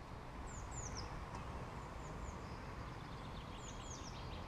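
Wild birds singing: pairs of quick, high, downward-sliding chirps three times, with a fast trill starting near the end, over a steady low outdoor background rumble.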